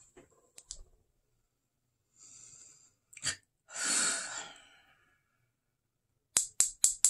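An eyeshadow palette being handled, with light clicks and a short rustle, then a loud sigh about four seconds in and four sharp clicks in quick succession near the end. A pan of eyeshadow has just come loose from the palette.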